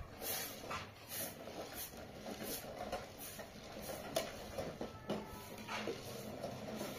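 Short straw hand broom sweeping a concrete yard, a dry swish with each stroke, about one every two-thirds of a second.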